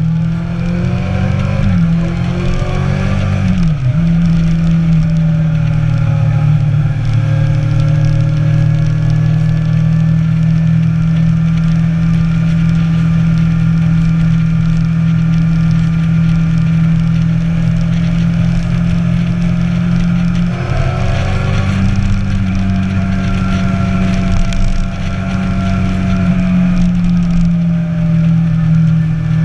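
Inline-four sportbike engine running under way, its note steady for long stretches. The pitch drops and shifts a few seconds in, and shifts again about two-thirds of the way through, as with gear changes or throttle changes.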